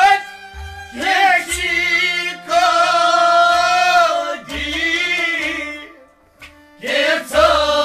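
Male voice singing a Kashmiri Sufi song in long phrases with short breaks between them, over the steady drone of a harmonium.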